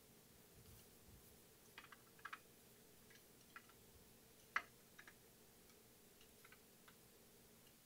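Faint scattered clicks and ticks of a ball-end hex driver and screws against the metal housing of a telescope mount. The sharpest click comes about four and a half seconds in.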